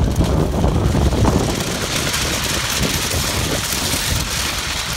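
Wind buffeting the microphone with a low rumble, giving way about a second and a half in to a steady rushing hiss.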